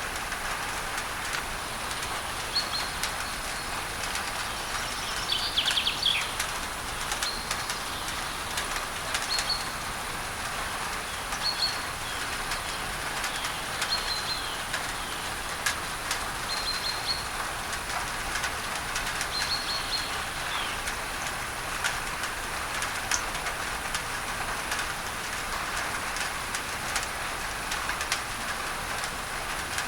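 Steady rain on a tin roof under a hiss of added pink noise, with drops ticking on the metal. A bird calls in short repeated chirps from a few seconds in until about two-thirds of the way through, with a longer trill at about six seconds.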